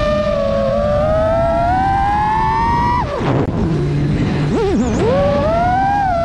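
FPV quadcopter's brushless motors whining. The pitch climbs steadily, drops sharply about three seconds in, then sweeps back up a second and a half later and climbs again. A low rush of wind noise sits beneath it.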